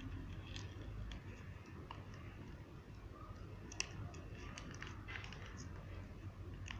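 Faint scattered clicks and crinkles from squeezing thick shampoo out of a cut plastic sachet into a beaker, with one sharper click a little before four seconds in, over a low steady hum.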